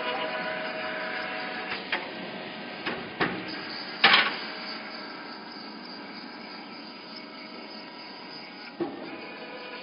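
Large nut tapping machine running with a steady whine that fades away over the first few seconds, broken by sharp metal clanks: a few light ones, a loud ringing one about four seconds in, and another near the end.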